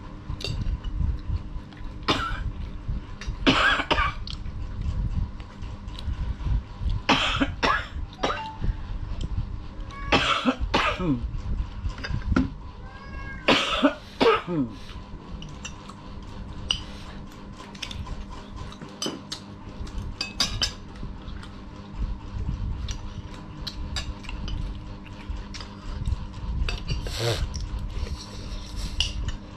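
Children eating a meal of rice and pork chops: spoons clinking and scraping on plates, with chewing and mouth sounds. A few short vocal noises come in bursts, loudest between about three and fifteen seconds in, over a steady low rumble.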